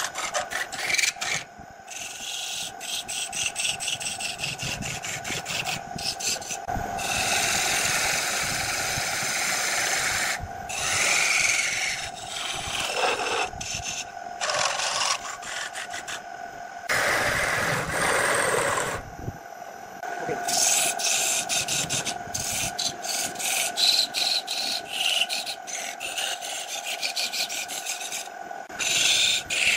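Wood lathe running with a steady motor whine while a turning chisel cuts and scrapes the spinning segmented wood blank, in irregular spells of hissing cutting noise, the longest about seventeen seconds in.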